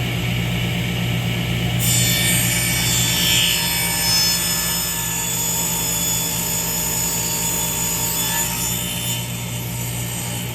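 An electric power tool working wood: a steady motor hum, with a louder cutting noise that starts about two seconds in and keeps on.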